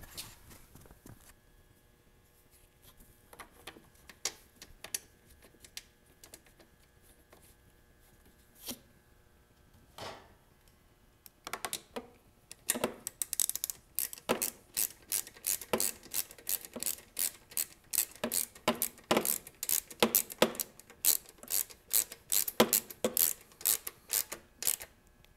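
A few scattered clicks, then from about halfway through a ratchet clicking in a quick, even series, about three clicks a second, as a bolt is driven into the side of a lawn mower engine's blower housing.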